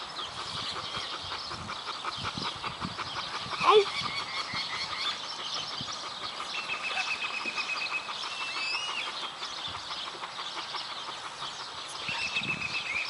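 Small birds chirping and trilling, with two quick rapid trills and one louder falling cry about four seconds in.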